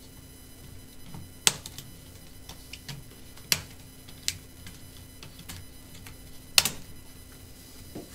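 HP EliteBook 840 G1 laptop keyboard being pried out of its plastic deck: three sharp snaps as its retaining clips let go, with lighter clicks and taps of the keys and pry tool between them.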